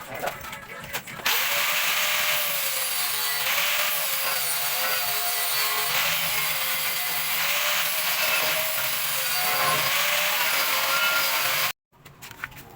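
A power tool running steadily with a wavering whine for about ten seconds, cutting off abruptly near the end.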